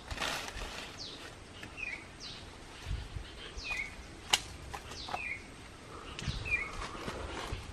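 A bird calling over and over, a short downward whistle and a chirp about every second and a half. Scattered sharp clicks and a few soft low thumps come from close by.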